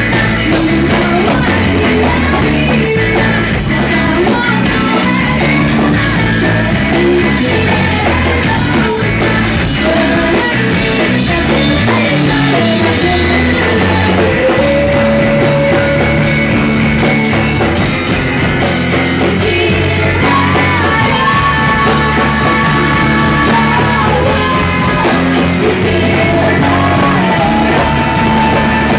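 A math rock band playing live and loud, with electric guitars, bass guitar and drums, and singing over it.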